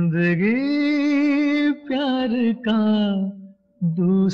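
A voice singing long held, wavering notes in short phrases, with brief breaks between them.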